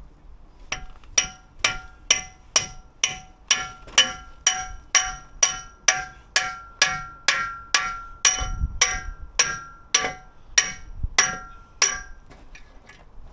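Hammer blows on steel, a little over two a second in a steady rhythm, each blow ringing with a clear metallic tone. The hammering starts just under a second in and stops shortly before the end.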